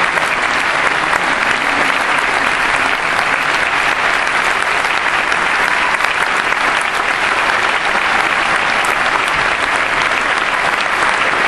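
Audience applauding steadily: dense, continuous clapping from many hands.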